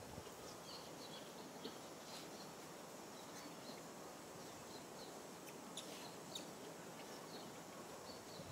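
Faint outdoor ambience with a small bird chirping repeatedly in short, high notes, and a few soft clicks.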